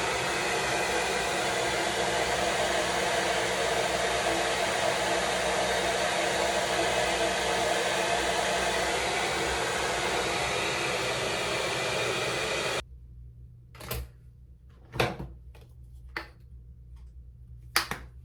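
Handheld hair dryer blowing steadily, then switched off abruptly about 13 seconds in, followed by a few light knocks and clicks.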